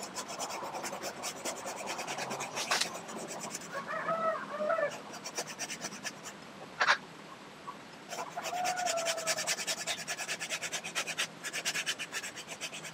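Hand pruning saw rasping through a lychee branch in quick strokes, stopping for a few seconds midway before starting again. A bird calls a few times, and there is one sharp click about seven seconds in.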